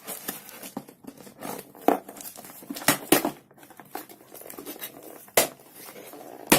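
A parcel's packaging being torn open and crinkled by hand: irregular rustling with several sharp rips.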